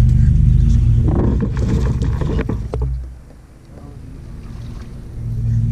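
Water splashing and sloshing beside a kayak as a landing net is dipped over the side, with a few sharp splashes, over a steady low hum that fades out about three seconds in.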